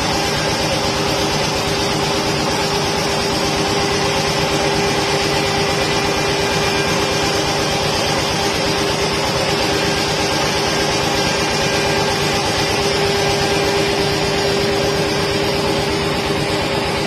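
CNC router spindle carving a relief into a board: a steady whine with cutting noise over it, running on without change.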